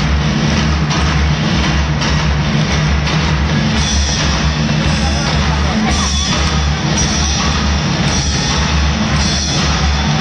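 Loud music with a heavy, steady drum beat blaring over public-address loudspeakers.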